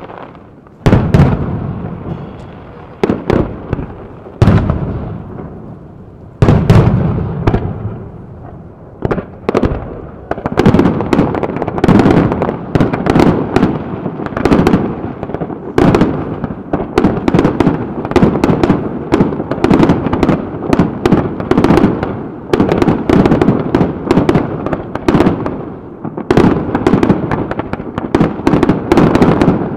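Japanese aerial firework shells bursting. A few separate booms come in the first several seconds, then from about ten seconds in a rapid barrage of many overlapping bangs.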